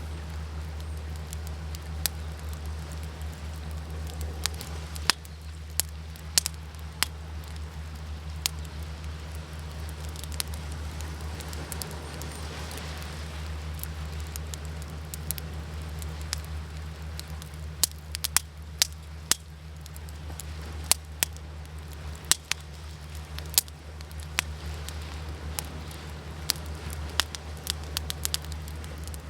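Wood campfire crackling, with sharp pops scattered irregularly throughout, over a steady low rumble of ocean waves.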